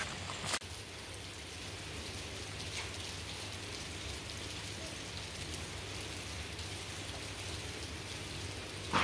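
Steady light rain, an even hiss of drizzle falling, with a brief rustle and a sharp click about half a second in.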